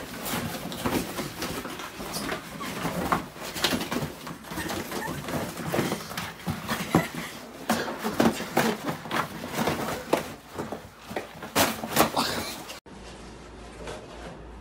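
Dog play-wrestling with a person on the floor: irregular scuffling, scraping and thumps, several sharp knocks standing out near the end. It cuts off suddenly to a quieter steady hiss.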